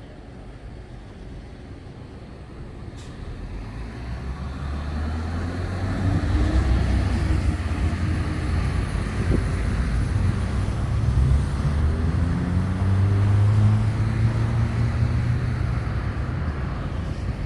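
A large motor vehicle passing close: a low rumble builds over a few seconds and stays loud, its engine pitch rising twice.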